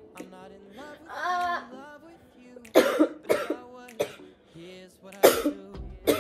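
A young woman coughing: two coughs close together about three seconds in and a louder one about two seconds later, after a short voiced sound near the start.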